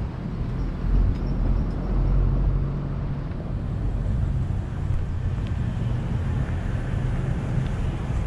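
Street traffic: a motor vehicle's engine running close by over a steady low rumble, loudest in the first few seconds.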